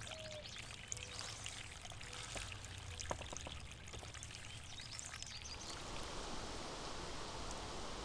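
Faint trickling, pouring water sound, with small clicks and a few faint high chirps. The water sound turns denser and steadier about five and a half seconds in.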